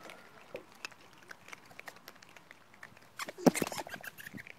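Ring-tailed lemurs moving about and handling the camera: scattered small clicks and scratches, with a louder cluster of knocks and rustles about three and a half seconds in.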